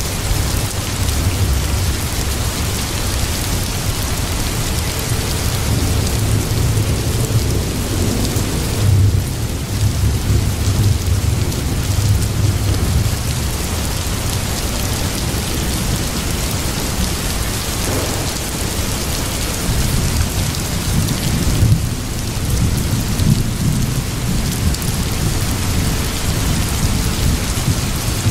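Steady rain with low rolling thunder, the rumble swelling about a third of the way in and again past three-quarters.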